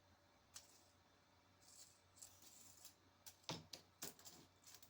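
Near silence: quiet room tone with a few faint clicks and taps, the loudest about three and a half seconds in.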